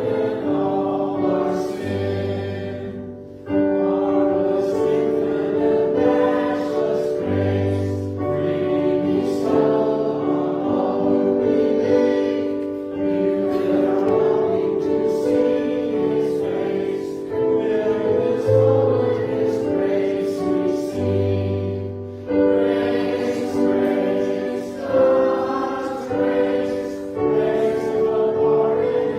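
Church choir singing a hymn or anthem with instrumental accompaniment: sustained chords in phrases, over long-held low bass notes.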